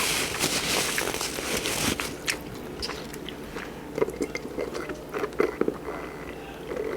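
A person chewing and biting into food close to the microphone, crunchy at first, with a dense crackly crunch in the first two seconds and then softer, scattered chewing clicks.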